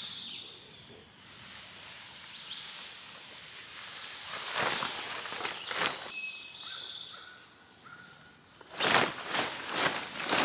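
Outdoor ambience with a songbird singing short whistled phrases at the start and again about two-thirds of the way through. Near the end comes a quick series of loud rustles and knocks from gear being handled.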